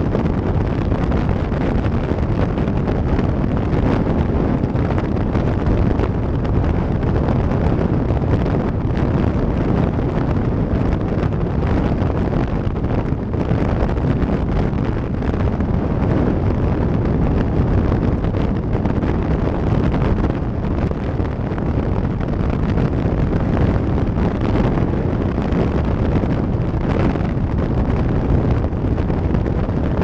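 Heavy, steady wind rush on an action camera's microphone on a Kawasaki sport motorcycle at highway speed, with the bike's engine and road noise mixed in underneath.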